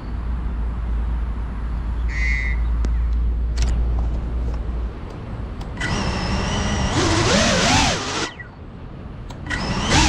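Cinelog35 cinewhoop FPV drone's motors and propellers whining in two bursts, the first from about six seconds in and the second near the end, the pitch swooping up and down with the throttle. Before that there is a steady low rumble.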